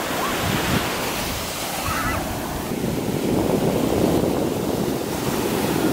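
Ocean surf breaking and washing up a sandy beach in a steady wash of noise, swelling about halfway through, with wind buffeting the microphone.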